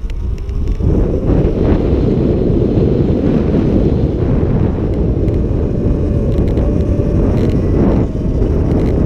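Wind buffeting the microphone on a moving Surron X electric dirt bike, a loud steady rumble, with a faint whine from the bike's electric motor running under it.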